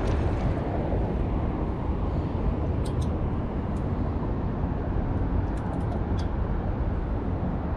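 Strong wind buffeting the microphone: a steady low rumble with no pauses, with a few faint high ticks about three seconds in and again near six seconds.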